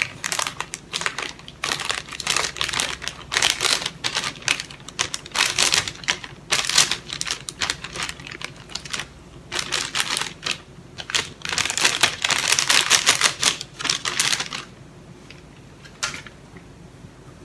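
Clear plastic bag crinkling and rustling in quick, irregular bursts as flour is shaken and squeezed out of it into a saucepan. The rustling stops about three-quarters of the way through, leaving only a faint click.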